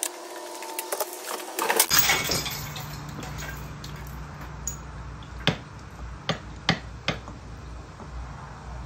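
Sharp metallic clinks and taps from a Kiekhaefer Mercury 650 outboard powerhead's crankshaft and piston assembly being handled and worked into the block. There is a quick cluster of clinks in the first two seconds, then four separate clinks a few seconds later.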